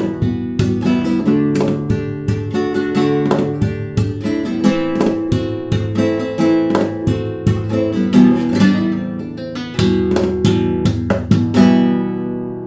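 Acoustic guitar playing fast picked notes and strummed chords, ending on a last strummed chord that rings out and fades.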